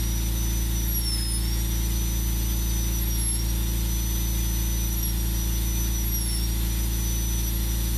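High-speed rotary carving tool with a tiny diamond-tipped point running steadily as it cuts between fish scales carved in wood. Its high whine dips slightly in pitch a few times over a steady low motor hum.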